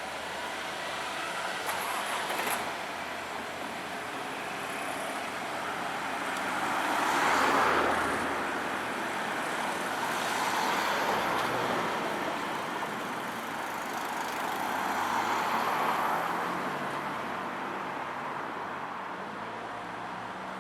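Road traffic: several vehicles pass one after another, each swelling and fading, the loudest about seven and a half seconds in.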